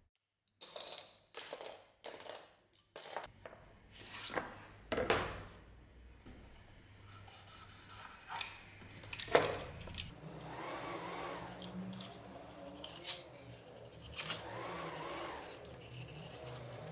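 A knife blade cutting and scraping leather: scattered short scrapes and clicks, then from about ten seconds in a utility knife scraping along a leather strip as it is skived, over a faint steady hum.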